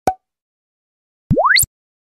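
Animation sound effects for a subscribe button: a short pop right at the start, then about a second later a quick rising tone sweep lasting about a third of a second.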